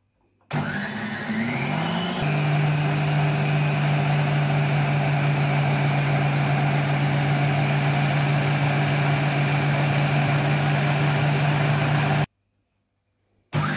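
Moulinex Masterchef 650 food processor motor starting up, its whine rising in pitch over about two seconds, then running steadily as it churns thick cream into butter. It cuts off abruptly near the end and starts up again, rising once more.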